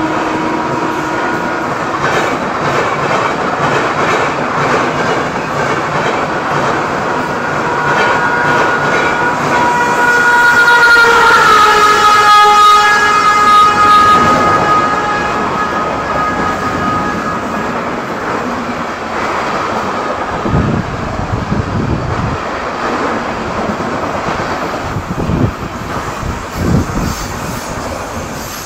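Express train passing through a station at speed: the locomotive's horn holds a long multi-tone blast that drops in pitch as the engine goes past, about 11 seconds in. Then the coaches rush by, with the wheels clattering over the rail joints in the last few seconds.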